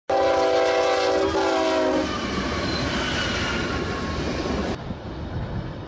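Locomotive air horn sounding a chord of several tones for about two seconds, followed by the rumble of a running train that cuts off suddenly about five seconds in.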